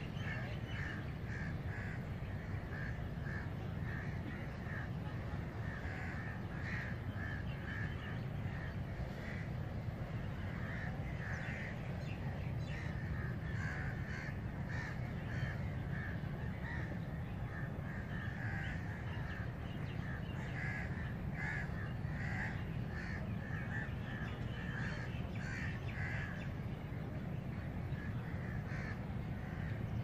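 Wild birds calling again and again in short calls, over a steady low rumble of background noise.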